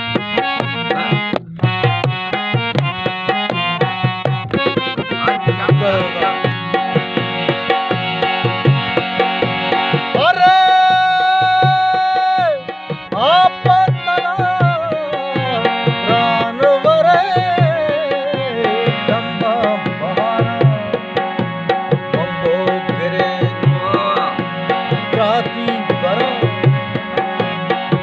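Live folk music: a man singing with long held notes and ornamented runs over a keyed instrument's sustained tones and a steady hand-drum beat. The voice comes in about five seconds in, after a short instrumental passage.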